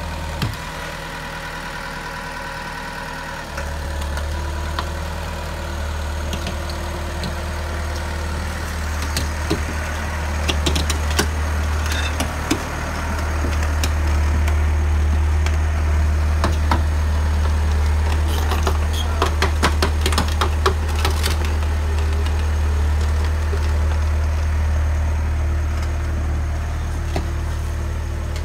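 Comacchio MC 900 GT crawler drill rig's diesel engine running with a steady deep hum, getting louder about four seconds in and again near the middle as the rig climbs. Scattered sharp clanks come through in the middle stretch.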